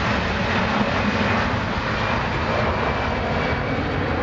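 Four CFM56 turbofan engines of an Airbus A340-300 at takeoff thrust during the takeoff roll, a loud, steady jet noise as the airliner accelerates down the runway.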